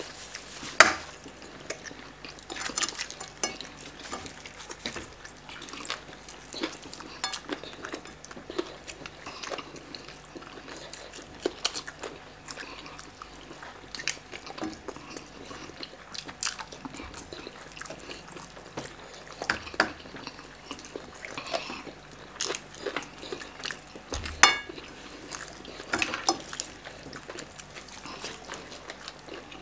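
Eating sounds from two people tearing apart whole roast chickens by hand and chewing: irregular wet smacks and sharp little clicks and knocks, with the sharpest about a second in and another late on.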